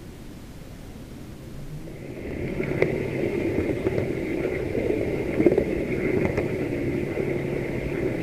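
H0 model locomotive running along the track, heard from a camera riding on it: a steady rumble with a higher whine, broken by a few sharp clicks. The sound is low and quiet at first and grows louder about two seconds in, once the train is moving.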